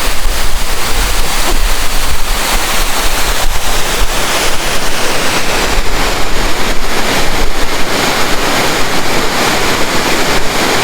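Loud, steady rush of river water, with wind buffeting the microphone in the first few seconds.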